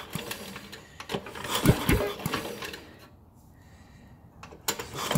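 Small engine being turned over slowly by hand on its recoil starter, with rattling mechanical clicks and short whirring sweeps in the first couple of seconds, a quiet pause, then a few more clicks near the end. The engine is being cranked to watch an exhaust valve that the owner believes is stuck.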